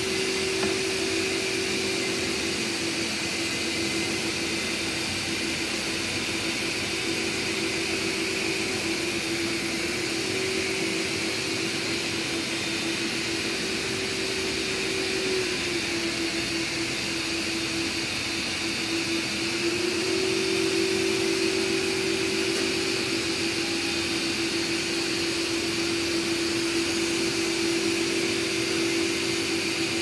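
Several Samsung POWERbot R9350 robot vacuums running together on carpet: a steady whir of suction fans with a low hum that dips slightly in pitch a couple of times.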